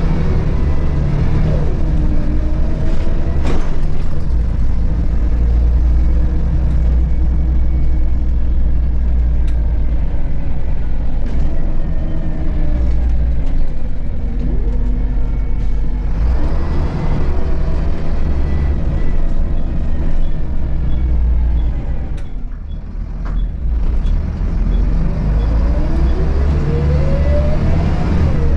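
On board a 2002 Volvo B7RLE bus with a Volgren CR221L body: its rear-mounted six-cylinder diesel drones steadily under way. It rises in pitch as the bus pulls away and picks up speed near the start, about halfway and near the end, and eases off briefly about three quarters in.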